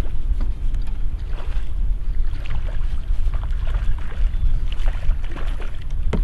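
Wind rumbling on the microphone over open water, with scattered short splashes as hooked largemouth bass thrash at the surface beside the boats.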